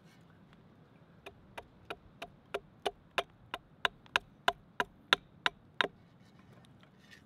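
Small axe hewing a wooden spoon blank held against a log. There is a run of about fifteen quick, even chops, about three a second, starting about a second in and stopping near the six-second mark. The first few chops are fainter.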